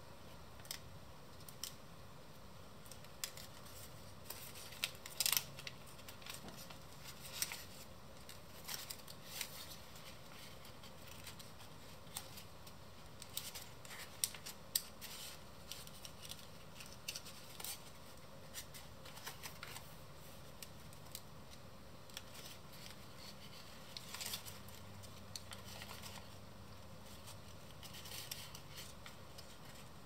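A sheet of brown origami paper being folded and creased by hand: soft, irregular crinkles and crackles of the paper, the loudest a little after five seconds in.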